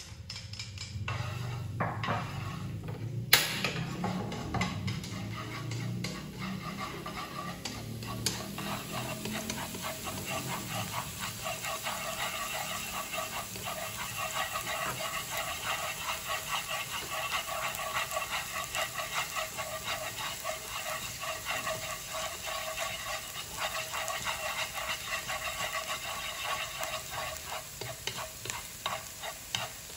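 Minced garlic sizzling and crackling in hot oil in a nonstick wok as it is stirred with chopsticks. There is a sharp knock about three seconds in as the garlic goes into the pan, and the sizzle grows fuller and steadier from about eight seconds on.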